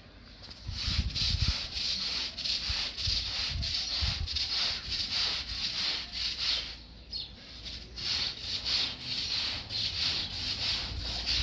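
Rapid, rhythmic rubbing or scraping strokes, several a second, with a short pause about seven seconds in.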